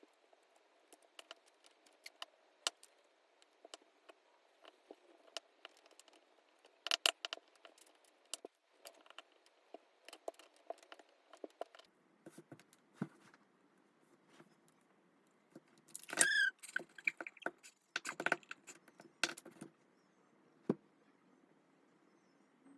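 Small items and packaging being handled: scattered light clicks, taps and rustles, with a brief falling squeak and a burst of clatter about sixteen seconds in.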